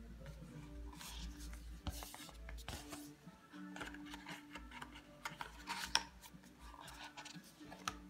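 Paper pages of a children's picture book rubbing and rustling as they are turned by hand, with the loudest rustle about six seconds in. Faint music plays underneath.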